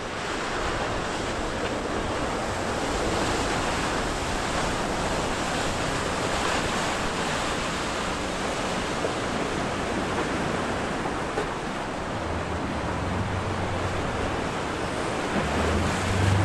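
Steady rush of wind and waves. About twelve seconds in, the low drone of a large sportfishing yacht's engines comes up under it, growing louder near the end as the boat passes close.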